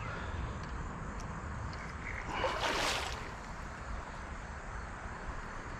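A hooked channel catfish splashing at the surface of the creek, one short splash about two and a half seconds in, over a steady low rumble.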